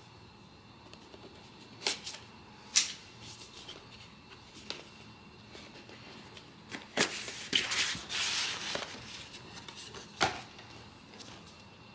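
Hands handling a cardboard blind-box set case: a few sharp taps and clicks, then rustling and scraping of cardboard as the lid is opened, from about seven to nine seconds in, and a last sharp knock a little after ten seconds.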